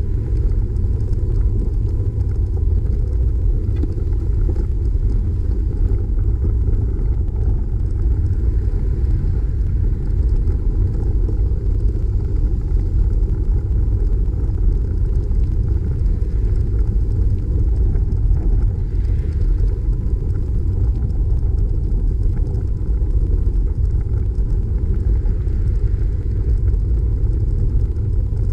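Steady low wind rumble buffeting the microphone of a bike-mounted camera while cycling, mixed with tyre and road noise.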